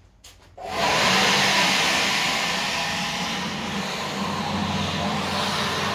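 Ryobi 40-volt battery leaf blower switched on: after a couple of faint clicks it starts abruptly about half a second in and runs steadily, a loud rush of air over a low motor hum.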